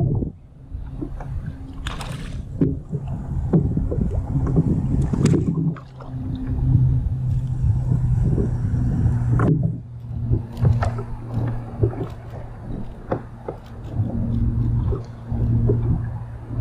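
Water lapping and slapping against a kayak hull, with frequent short knocks and clicks, over a steady low hum.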